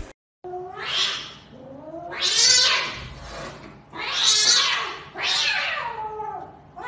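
Cat yowling at another cat in a face-off: four long, raspy, wavering wails, the warning cry of a cat ready to fight.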